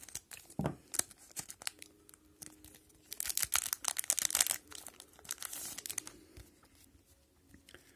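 Plastic wrapper of a hockey card pack crinkling as it is handled and torn open, with dense crackling about three seconds in and again near six seconds.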